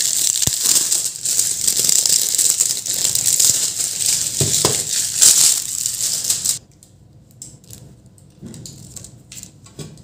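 Clear plastic bag crinkling as it is pulled off a new computer power supply; it stops abruptly about two-thirds of the way through. After that come only soft handling noises and faint clicks from the power supply's cables.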